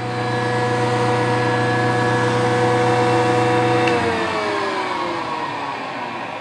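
Delta 6-inch jointer running at speed together with the shop's dust collector rushing air through the ducting. About four seconds in the jointer is switched off and its motor and cutterhead wind down, the hum falling in pitch, while the dust collector keeps running.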